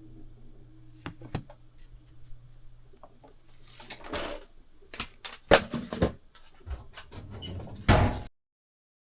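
Handling noise: scattered clicks, knocks and rustling as small objects are picked up and set down, over a low steady hum that stops about four seconds in. Two loud knocks come between five and six seconds in and one near eight seconds; then the sound cuts off abruptly.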